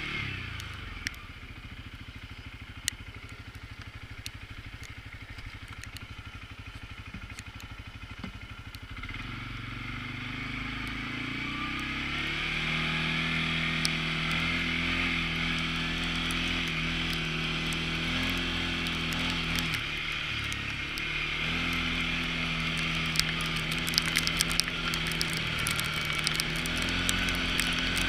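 CFMoto CForce ATV's single-cylinder engine running low for about nine seconds, then revving up and holding a steady higher speed, dropping off briefly past the middle and picking back up. Sharp clicks come through near the end.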